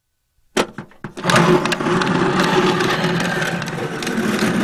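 A couple of knocks, then a big box pushed along the ground: a steady rough scraping and rattling that starts about a second in and keeps going.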